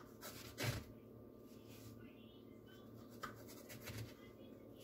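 Faint kitchen handling noises: a few light clicks and taps, the loudest a soft knock about two-thirds of a second in, over a steady low hum.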